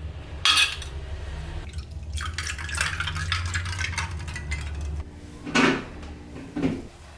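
Cutlery and dishes clinking and scraping in a few separate clatters, over a low steady hum that stops about five seconds in.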